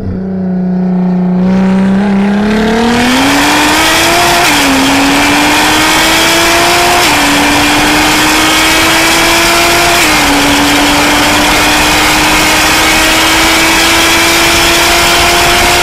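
Nissan GT-R's twin-turbo V6, tuned to 700 hp, accelerating hard down a straight, heard from inside the cabin. The engine note holds steady for about two seconds, then climbs through the gears, with three quick upshifts that each drop the pitch before it climbs again.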